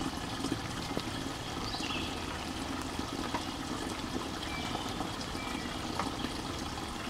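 Spring water trickling steadily from a pipe spout into the neck of a large plastic water-cooler jug: a slow fill from a low-flow spring.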